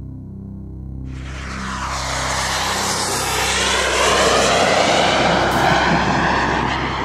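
A fixed-wing aircraft flying past, a rushing engine noise that swells over several seconds, is loudest in the second half and drops off at the end. Music plays underneath.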